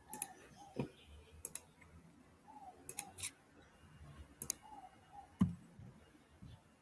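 Faint, scattered sharp clicks of computer mouse and keyboard use picked up over a video call, about ten in uneven groups. A soft two-note chirp repeats every couple of seconds behind them.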